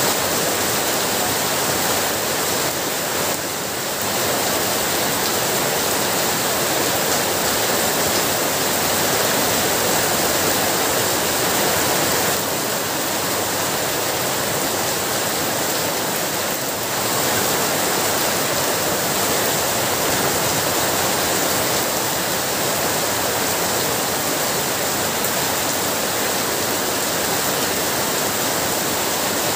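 Heavy rain falling steadily: a dense, even hiss of rainfall, dipping slightly twice.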